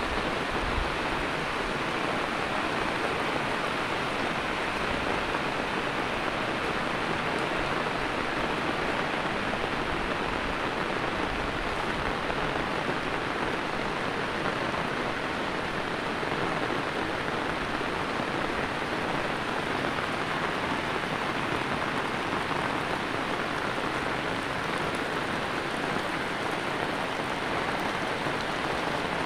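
Heavy rain falling steadily on a wet road, a constant even hiss with no letup.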